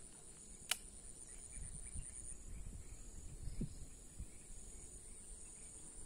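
Steady high-pitched insect chorus. A single sharp click comes less than a second in, and a few soft low thumps follow from handling the rod and reel.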